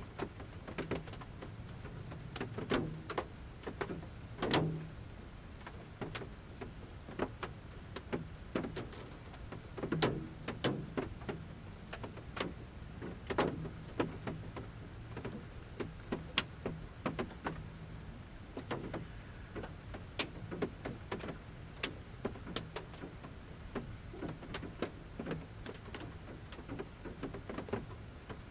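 Large raindrops falling from the forest canopy onto the roof of a camper van, pattering at irregular intervals, heard from inside the van. The taps are scattered and uneven, a few louder drops standing out, over a steady low hum.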